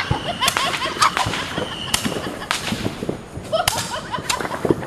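Consumer fireworks going off in a string of sharp cracks at uneven intervals, about seven in all. Short, high cries come in between them.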